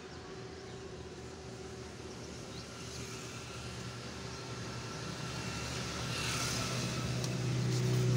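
A vehicle engine running steadily nearby, growing louder through the second half, with brief rasping noises on top around two-thirds of the way in.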